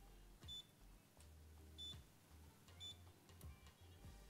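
Faint short electronic beeps, about one a second, from an electric glass-top hob that has switched itself off mid-cooking, under a low steady hum.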